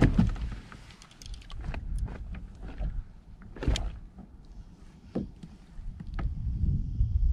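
Scattered knocks and clicks of fishing gear being handled on a plastic sit-on kayak, over a steady low rumble, with sharper knocks near the start and about three and a half seconds in.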